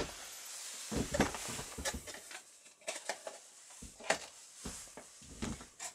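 Handling noises: light knocks and clicks of parts being picked up and set down on a metal workbench, with the rustle of a work jacket brushing close by.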